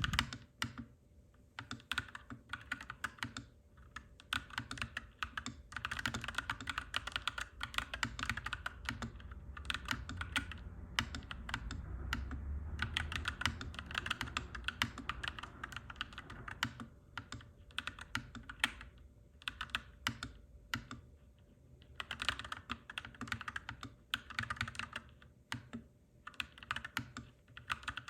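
Clacky mechanical keyboard typing: rapid runs of keystrokes broken by short pauses. A low rumble swells and fades in the middle.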